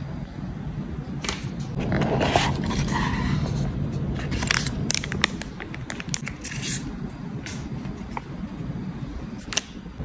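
Handling noises: scrapes as the watch and its box are handled, then a small zip-lock plastic bag crinkling in the hand, with a few sharp clicks near the end. A steady low hum runs underneath.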